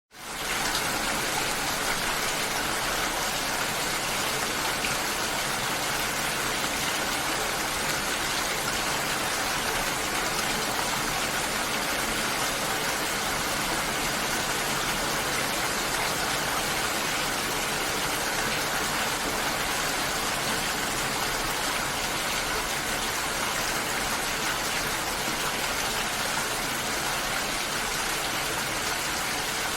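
Steady rain, an even, dense hiss that rises in from silence at the start and then holds level.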